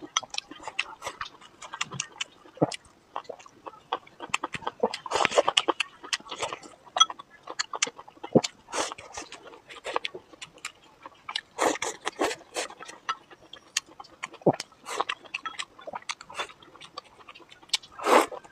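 Close-miked eating sounds: wet chewing and mouth smacking of stir-fried meat and potato strips, a dense run of irregular clicks with louder bursts every few seconds.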